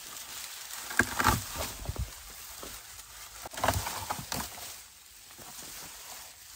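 Dry, dead garden vines rustling, crackling and snapping as they are pulled by hand from a wire trellis, in two bursts: about a second in and again about three and a half seconds in.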